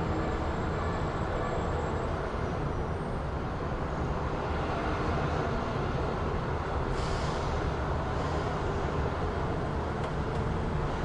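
City street ambience: a steady low rumble of vehicle traffic, with a brief hiss about seven seconds in.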